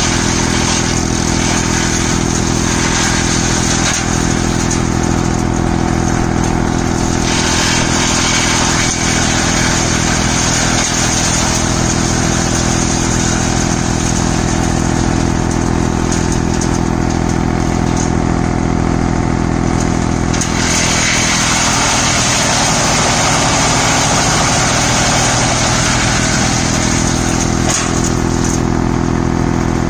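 A tractor engine drives a tree-branch wood chipper, running steadily under load as green branches are fed in and chipped.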